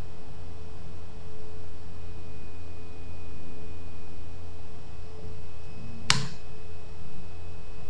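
Steady low electrical hum and hiss from the recording setup, with faint steady tones, broken once about six seconds in by a single sharp click.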